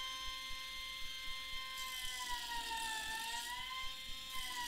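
Air-powered die grinder with a thin abrasive cutoff wheel running at a steady high whine while cutting into a helium tank. Its pitch sags a little under load around the middle, and from about two seconds in a hissing grind of the wheel biting the metal joins the whine.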